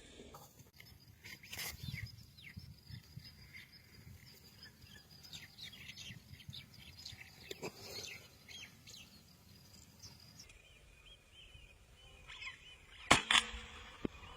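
European starlings chirping and calling, many short, high chirps and down-slurred whistles. A single sharp crack sounds near the end.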